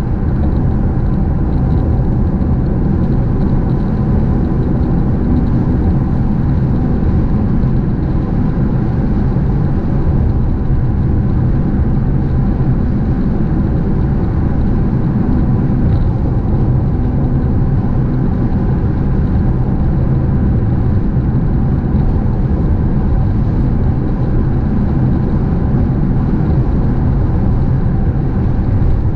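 Steady road noise inside a car cruising at highway speed: tyres on pavement and the engine running, a continuous deep drone with no changes.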